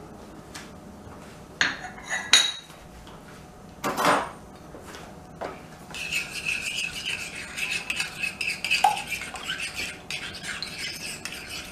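Metal spoon beating eggs and sugar in a glass bowl. A few separate clinks and knocks come first, then from about six seconds in a quick, steady run of metal clinking against glass.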